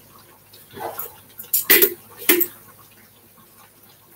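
Plastic kitchen container and its lid handled: a soft rustle about a second in, then a quick cluster of sharp clicks and knocks near the middle and one more knock just after.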